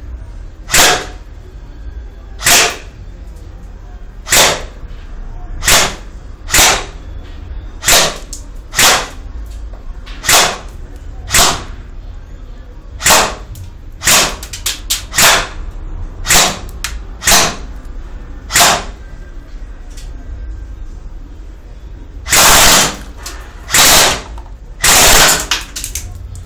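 G&P M4A1 Marine electric airsoft gun firing single shots, about one every one to two seconds, then a quick string of shots in the middle. Near the end it fires several short full-auto bursts.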